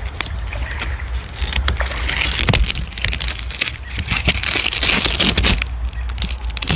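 Water splashing and sloshing as a person wades through knee-deep water, in uneven bursts over a steady low rumble.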